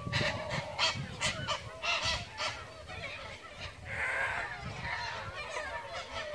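A flock of magpie geese honking, with many short calls overlapping in quick succession and a fuller call about four seconds in.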